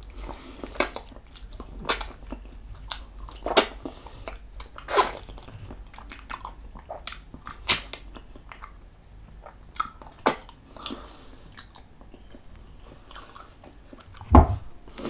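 Close-miked eating sounds: wet chewing and lip smacks, with irregular sharp clicks throughout and a heavier thump near the end.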